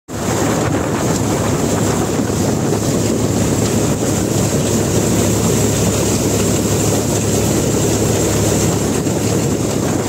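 Satnam 650 mini combine harvester running steadily while harvesting wheat, heard from on top of the machine beside its grain tank: a loud, even mechanical din over a low engine hum.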